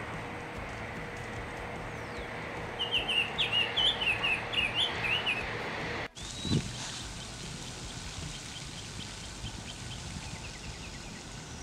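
A summer tanager singing: a quick run of short, clear notes lasting about two and a half seconds. A brief low thump comes about halfway through, and fainter chirping notes follow over the steady outdoor background.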